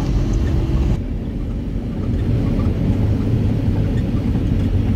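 Steady low rumble of a car driving along a highway, its road and engine noise heard from inside the moving vehicle.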